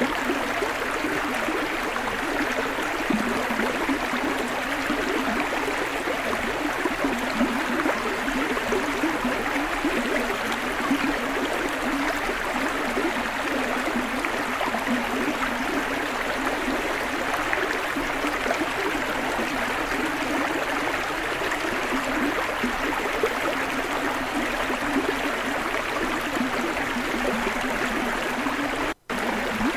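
River water rushing steadily over shallow rapids, a continuous even roar of flowing water. It cuts out for an instant near the end.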